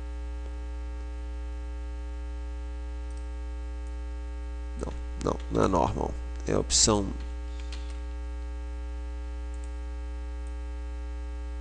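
Steady electrical mains hum with a buzz of many even overtones. About five seconds in, a few brief murmured syllables of a man's voice sound over it.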